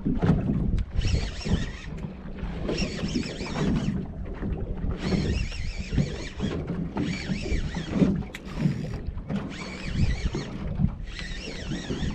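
Small boat rocking on the sea, with water slapping the hull and wind buffeting the microphone, while a high whirring comes and goes in spells of about a second, several times.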